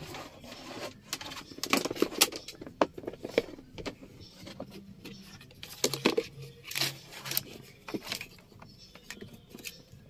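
Scattered clicks, taps and light scrapes of a dashcam charger plug and its cable being handled and moved over to another power socket.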